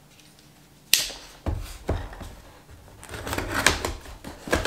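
A cardboard box being handled and its packing tape slit open with a pocketknife: a sharp click about a second in, a few knocks, then scratching and rustling of cardboard and tape.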